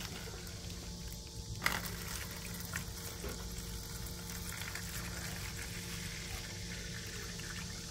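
Water pouring steadily from a plastic bottle into a shallow plastic tray, after a single sharp click a little under two seconds in.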